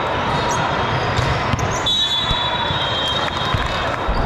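A basketball game in a gym: a ball bouncing on the court over a steady din of crowd and players. About two seconds in, a high steady tone starts and holds for over a second.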